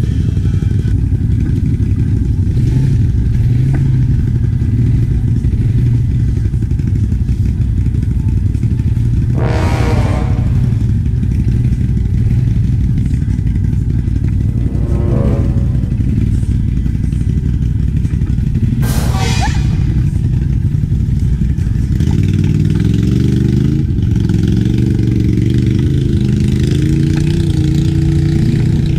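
ATV engine running steadily under load while riding through mud, its pitch rising and falling with the throttle in the last several seconds. Two brief bursts of noise stand out, about ten and nineteen seconds in.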